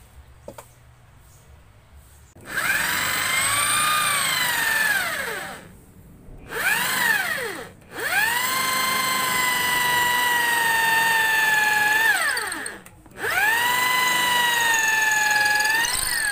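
Electric drill boring into a wooden block, run in four bursts after a couple of seconds of faint clicks. Each burst is a motor whine that rises as the drill spins up and glides down when the trigger is released.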